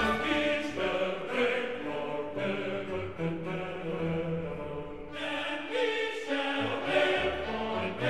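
Background music with held, choir-like voices.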